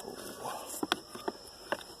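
Car gear-shifter assemblies being handled and set down: a short rustle, then about four sharp light clicks and knocks of hard parts touching.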